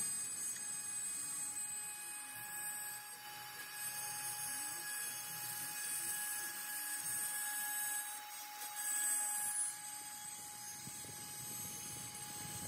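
CNC router cutting a wooden board: the spindle's steady high-pitched whine, with the rougher, shifting noise of the bit cutting and the machine moving underneath.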